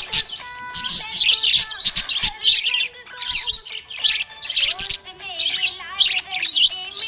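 Small pet parrots chirping and chattering in quick, overlapping calls.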